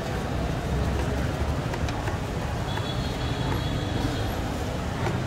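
Busy street-market background: a steady low rumble, with a few faint clinks and a thin high whistle for about a second and a half midway.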